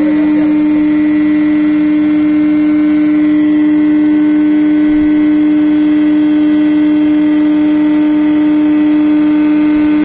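Hydraulic pump test bench running a Rexroth A4VG71 axial piston pump at a steady 1010 rpm: a loud, steady hum with one strong tone, holding even as the test pressure is raised.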